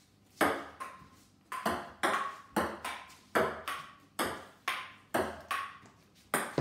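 Table tennis rally on a wooden dining table: the ping-pong ball bounces on the tabletop and is hit back and forth by paddles, a sharp tap roughly every half second, many of them with a brief ringing note.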